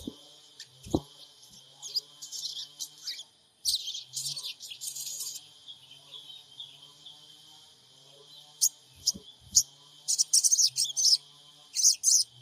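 Sogon trotol bird calling with rapid, high, chirping bursts, thickest near the end. A few soft knocks come through as well.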